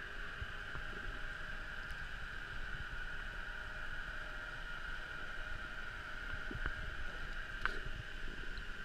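Muffled underwater ambience picked up through the camera's waterproof housing: a steady hiss with low rumbling from water moving over the housing, and a few faint clicks, the sharpest near the end.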